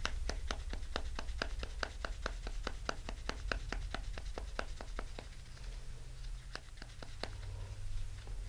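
Fingers flicking a plastic two-barrel syringe of 5-minute epoxy: a quick run of sharp ticks, about four or five a second, for some five seconds, then a few more near the end. The tapping is meant to make air bubbles in the resin float up before it is dispensed.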